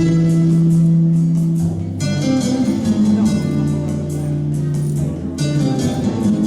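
Background music led by guitar, with long held notes that change every second or two.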